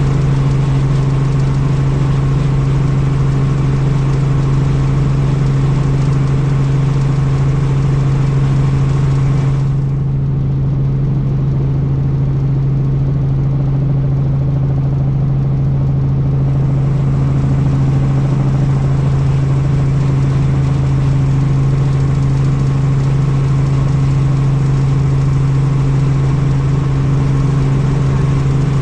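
Helicopter in flight: a steady, loud drone of rotor and engine with a strong low hum. About ten seconds in, the hiss above the hum drops away for some six seconds, then returns.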